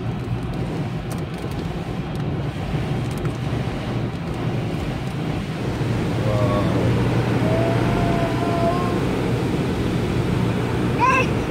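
Automatic car wash heard from inside the car's cabin: a steady rush of water spray and washing on the car body over a low steady hum, getting a little louder about halfway through.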